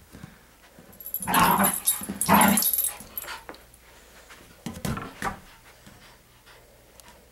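Terrier growling and barking in play: two loud, rough barks about a second in, then a shorter pair near five seconds.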